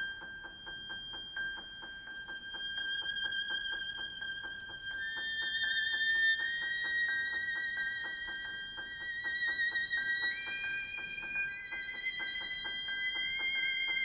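Contemporary chamber-ensemble music: a held high note over a fast, even ticking of about five ticks a second. Several high notes with vibrato join about two seconds in and step up in pitch around five and ten seconds in.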